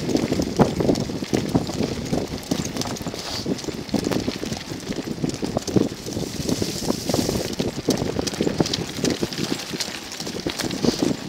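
Sacco Wagon dog cart rolling along a dirt track behind three harnessed dogs: a continuous, irregular clatter of knocks and rattles from the wheels and metal frame, with wind on the microphone.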